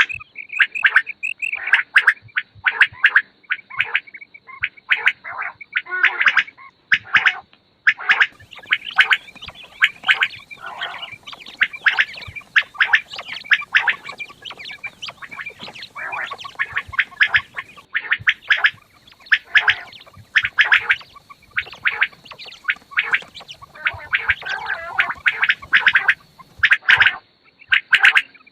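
Quail calling over and over in quick runs of short, sharp notes, with brief pauses between runs. A faint steady high tone runs underneath.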